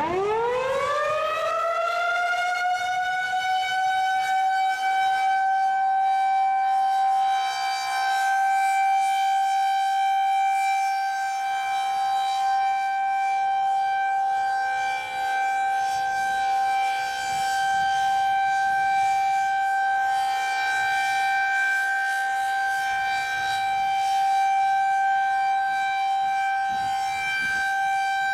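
Federal Signal 2001-SRN electromechanical outdoor warning siren starting up. It winds up quickly in pitch over the first couple of seconds, then holds one steady, loud tone for its monthly test.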